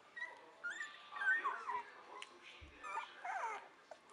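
Two-week-old Entlebucher Mountain Dog puppies whimpering and squeaking: a string of short, high cries that waver up and down in pitch, coming in a few bouts.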